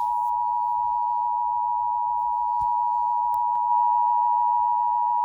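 Emergency Alert System attention signal: a loud, steady two-tone alarm held unbroken, marking the start of an emergency alert, here a fire warning.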